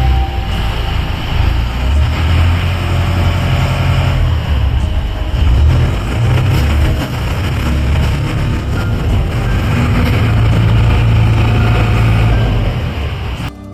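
Loud, steady low engine rumble with a mechanical hum, cutting off suddenly near the end.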